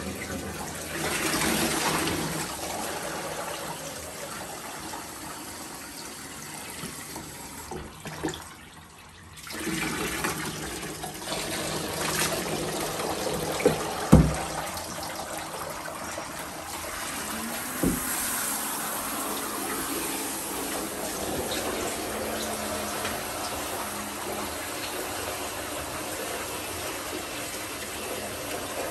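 Handheld shower head spraying water onto a dog's thick wet coat in a bathtub. The water stops briefly about a third of the way in, then runs again. Two sharp knocks come in the middle.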